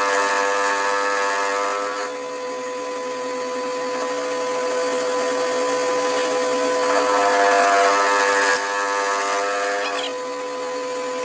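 Electric machine tool running with a steady whine, cutting metal. A louder, rougher cutting sound rises over the whine at the start and again from about seven to eight and a half seconds in.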